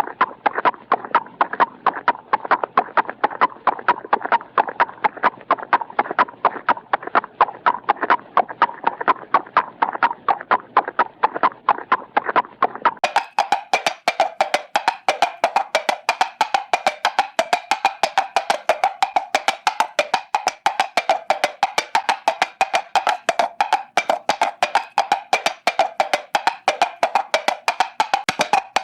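Hanna-Barbera cartoon sound effect of fast, even wooden knocks like clip-clopping hoofbeats, about four a second. About halfway through it gives way to a brighter, higher-pitched woodblock knocking at the same pace.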